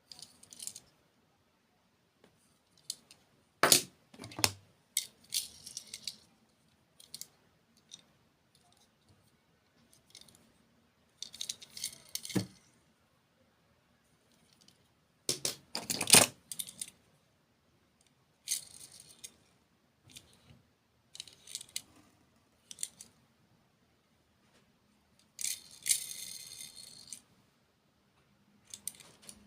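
Close-miked ASMR sounds of handling and eating candy and desserts: irregular short bursts of rattling, clicking and crinkling, about a dozen of them with quiet gaps between, the loudest about halfway through.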